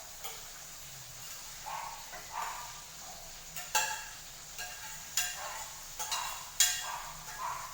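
A utensil scraping and clinking against a cooking pot, with a few sharp, ringing clinks about every second and a half and softer scrapes between them.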